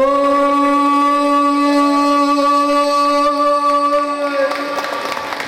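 One long sung note held at a steady pitch, fading out about four and a half seconds in.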